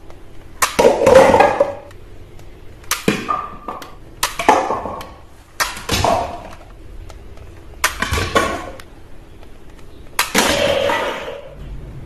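Toy crossbow shooting suction-cup arrows six times, each a sharp snap followed by a clatter of paper cups and plastic bowling pins being knocked down; the first is the loudest.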